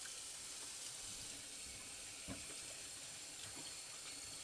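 Kitchen faucet running steadily into the sink, water flowing down the drain: a test of whether the drain line, just cleared with a power auger, now flows.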